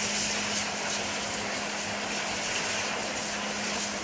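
A steady mechanical drone: a constant low hum under an even hiss, unchanging throughout.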